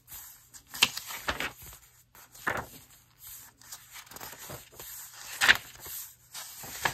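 Paper pages of a handmade junk journal being turned by hand: several short rustles and swishes of paper, the loudest about five and a half seconds in.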